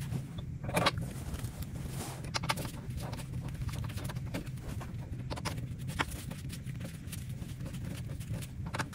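Scattered light clicks and taps of hand tools and small metal parts being handled on a small snowblower engine, over a steady low hum.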